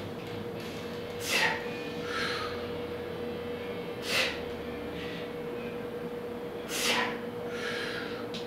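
A man breathing hard through a set of push-ups: three sharp, forceful breaths about two and a half seconds apart, with softer breaths between them. A faint steady hum runs underneath.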